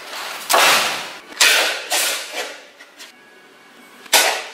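A handful of sharp knocks or swishes, five in all, each dying away within about half a second, the loudest near the start and one more near the end.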